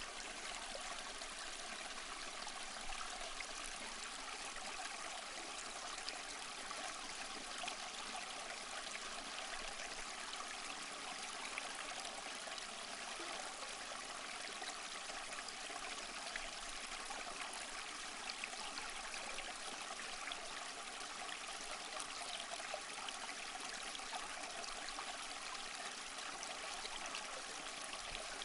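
Small rocky stream flowing, its water splashing in little cascades over boulders, steady throughout.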